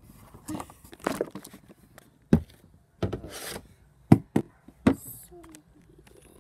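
Handling noise from a camera being picked up and moved by hand: a scatter of sharp knocks and clicks with rubbing and rustling on the microphone.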